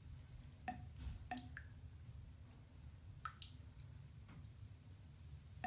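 Bath bomb fizzing in bathwater: faint scattered pops and drip-like ticks, several close together in the first second and a half and a few more around three to four seconds in, over a low steady hum.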